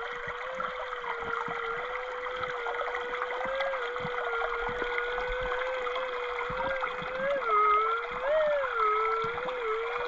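Metal detector's steady threshold tone, wavering slightly as the coil sweeps underwater, breaks into a louder, warbling rise and fall about seven to eight seconds in: a target signal that the prospector takes for a decent piece of gold in a crack. A creek trickles underneath.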